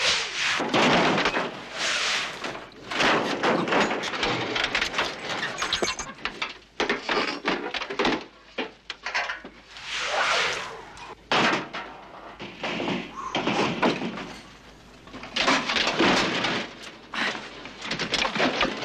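A Cadillac's body being smashed and torn apart: a long run of metal bangs, crunches and slams in irregular bursts.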